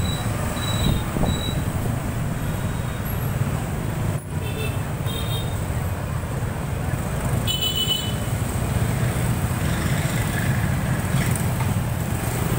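Motorbike and scooter traffic in a narrow street: a steady low engine and road rumble, with a short horn toot about seven and a half seconds in.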